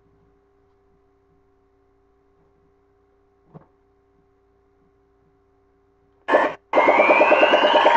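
Near silence with a faint steady hum and a soft click about three and a half seconds in, then a loud electronic robot sound-effects track starts just after six seconds: a short blip, a brief break, then a dense pulsing run of synthesized noises with a rising whine.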